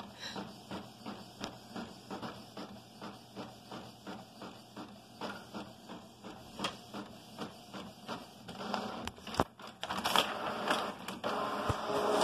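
Canon inkjet printer printing, its mechanism working in a steady rhythm of about four strokes a second. About three-quarters of the way through it turns to a louder, denser whirring with a few sharp clicks.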